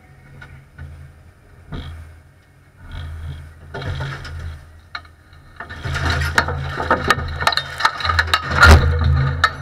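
An engine running unevenly, heard from inside a compact race car's caged cockpit. From about halfway on, dense rattling and sharp knocks build up, with the loudest knock near the end.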